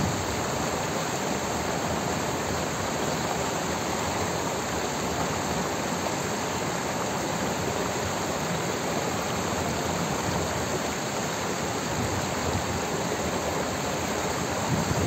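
Stream water pouring down a small stepped cascade of rock ledges into foaming pools, a steady, even rush of splashing water.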